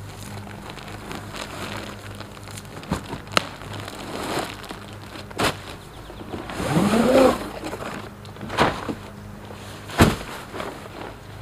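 Cardboard box and plastic-wrapped camping cot being handled: scraping, rustling and crinkling as the cot and pad are slid out of the box. There are several sharp knocks, a brief rising squeak about seven seconds in, and a heavier thump near the end.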